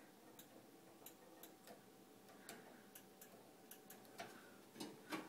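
Faint, irregular ticking from a gas stove's spark igniter and control knob as the knob is held and turned, with a louder click near the end.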